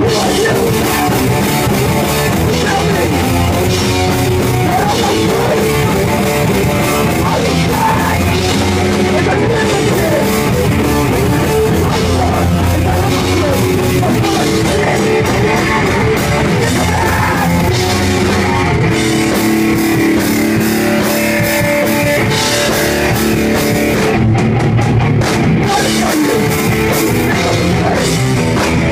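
A rock band playing loud: distorted electric guitars and a drum kit.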